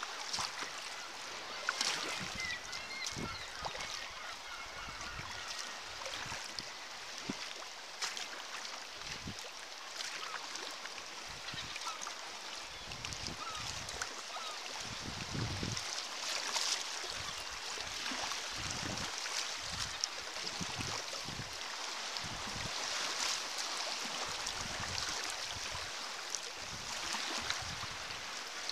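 Seawater splashing and lapping against a sea kayak's hull as it is paddled, with wind buffeting the microphone and a few faint seabird calls from the cliffs.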